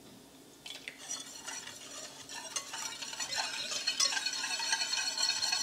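Wire balloon whisk beating milk into custard powder and sugar in a stainless steel saucepan, the wires scraping and ticking against the pan to break up lumps. It starts about a second in and grows steadily louder.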